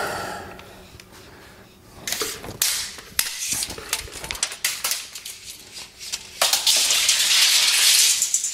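Handling noise from a metal tape measure and speaker wire being pulled off a spool: scattered sharp clicks and rattles. About six and a half seconds in, this becomes a continuous hissing rattle.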